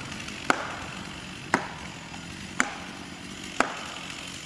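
Four hammer blows on felling wedges, about one a second, each a sharp metallic knock. The wedges are being driven into the back cut to tip the tree over.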